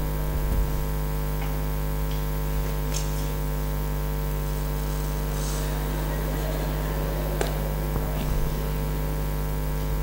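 Steady electrical mains hum through a PA system's wired microphones, with a few faint clicks of microphone handling.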